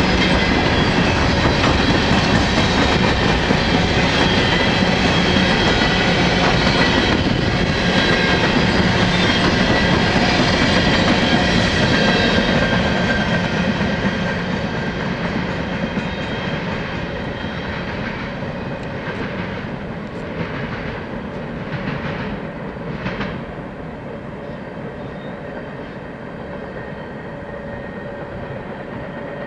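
Empty coal hopper cars of a freight train rolling past, a steady loud rumble of wheels on rail that fades after about halfway as the end of the train pulls away. A few separate wheel clacks over rail joints come through near the end.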